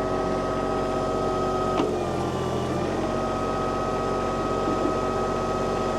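Kubota tractor's diesel engine running steadily, with a sharp click about two seconds in and a brief change in its low sound for about a second after it.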